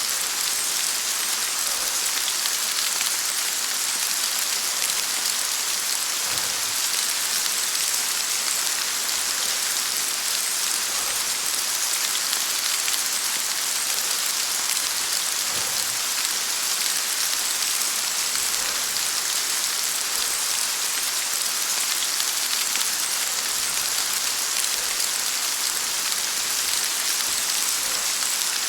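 Heavy rain falling steadily on a surface, a dense, even hiss of drops with no thunder heard.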